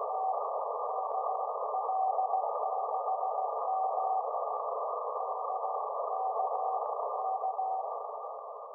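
Radio receiver audio on 432 MHz moonbounce (EME): steady hiss with a weak Morse code (CW) tone keyed in dots and dashes, a station's signal echoed off the moon. The hiss and tone fade out near the end.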